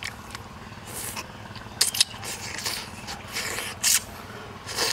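Close-up mouth sounds of someone eating cooked frog with his fingers: wet chewing, lip-smacking and finger-sucking, with short sharp smacks around two seconds in and just before four seconds.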